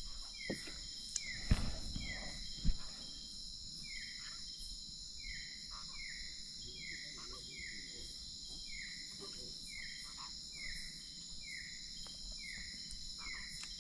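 Night-time insect chorus: a steady high buzzing, with a short falling chirp repeating about twice a second. A few sharp knocks stand out in the first three seconds.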